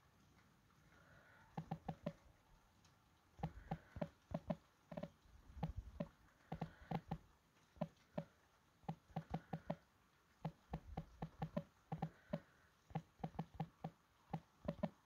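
Faint irregular taps and knocks, many in quick runs of two to four, each with the same slight ring to it, starting about a second and a half in.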